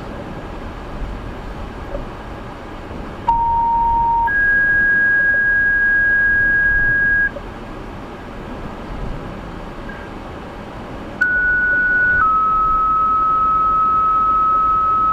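Two-tone sequential pager tones from a scanner radio, the alert for a fire/EMS dispatch. First comes a one-second tone, then a higher tone held about three seconds. After a pause comes a second pair: a one-second tone, then a slightly lower one held about three seconds. Under both, a steady hum of car and road noise.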